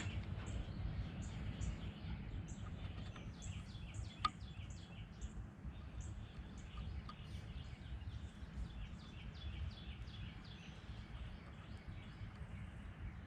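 A bird chirping repeatedly in short high notes, about twice a second at first and fainter later, over a low steady rumble of outdoor background noise. A single sharp click about four seconds in.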